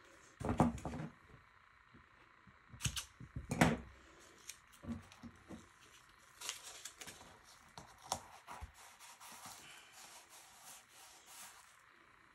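Tape being pulled off a roll and torn into strips: a few short rasping bursts, the loudest about half a second in and around three to four seconds in, with small clicks and handling noise between.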